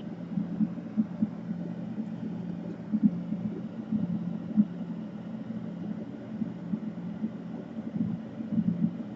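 Steady low background hum with faint, irregular soft taps and knocks on top.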